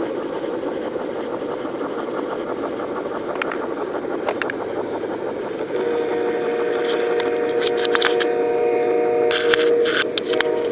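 Garden-railroad model trains running on outdoor track with a steady rolling rumble. About six seconds in, a steady chord of tones joins in, and sharp clicks and knocks come near the end.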